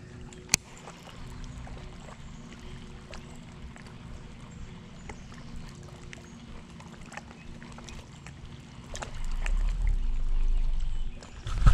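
Low rumbling boat-on-water noise with a faint steady hum, a single sharp click about half a second in, and a louder low rumble from about nine seconds in.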